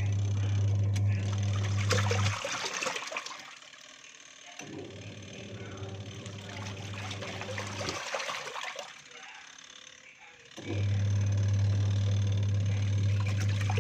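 Washing machine running with water rushing and splashing inside. A steady electric hum comes and goes in three stretches: strong at the start, weaker in the middle, strong again near the end.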